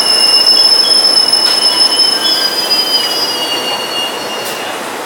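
SEPTA Silverliner IV electric commuter train rolling into a station, with a steady high-pitched squeal over the rumble of the cars as it slows. The squeal fades out about four seconds in.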